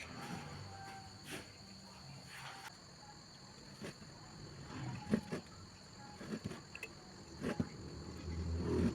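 Light clicks and taps of small electronic parts, LEDs and wires, being handled, over a steady faint high-pitched whine.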